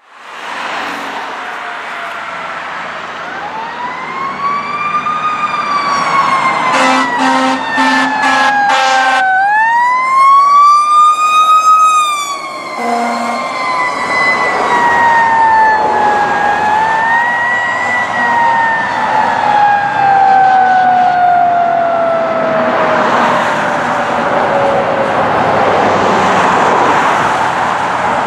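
Fire engine siren wailing: it winds up in pitch and then slowly coasts down, several times over. A run of short air-horn blasts comes about seven to nine seconds in and another just after twelve. Near the end the siren fades out under road noise.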